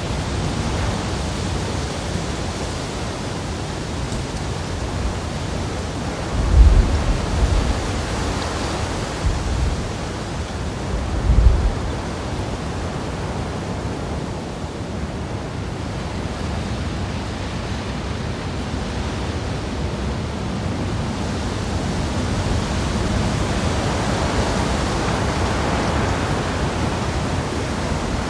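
Wind blowing steadily, recorded close up. A couple of low gusts buffet the microphone about a quarter and two fifths of the way through.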